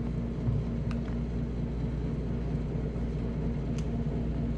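Steady low mechanical hum with a few faint clicks, like a car's engine and road noise heard from inside the cabin.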